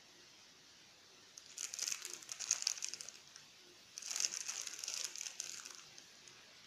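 Plastic wrapper of a Mie Sedaap Kari Spesial instant-noodle packet crinkling as it is handled, in two bursts of about two seconds each.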